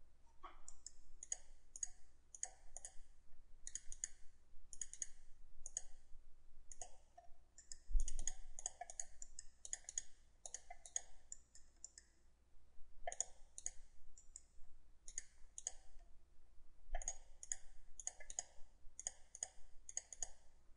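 Computer mouse clicking over and over, often in quick double clicks, with a soft low thump about eight seconds in.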